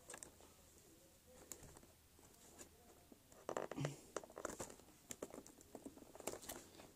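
Faint crinkling, clicking and tapping of a cardboard toy box as it is handled and pried at, with a denser burst of crackling about three and a half seconds in.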